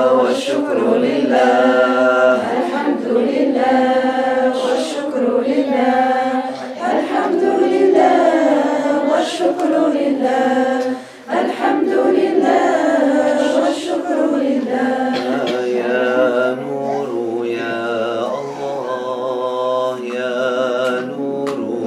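A small group of men's and women's voices chanting Islamic devotional dhikr together, unaccompanied, in a slow sung melody, with a short breath pause about halfway.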